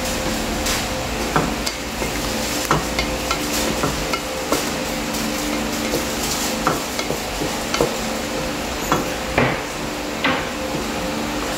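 Wooden spatula stirring mushrooms in a stainless steel pot, knocking and scraping against the pot irregularly about once or twice a second. Underneath is a steady sizzle from the simmering oyster-sauce liquid, with a low hum.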